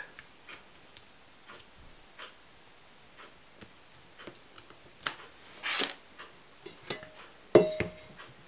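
Soft plastic bottom-bracket bearing cover handled and pressed onto a steel 6805 cartridge bearing by hand: scattered light clicks and taps, a brief scrape a little past halfway, and a sharper knock with a short ring near the end.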